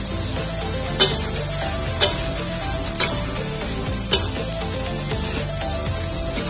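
Cabbage and bean sprouts sizzling as they are stir-fried in a metal wok, with the metal spatula clanking against the pan four times, about once a second.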